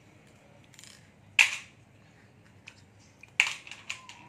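Small clacks and clicks of a disassembled electric rice cooker's plastic base and parts being handled during a repair. There is one sharp clack about a second and a half in, then a quick run of several clicks and knocks near the end.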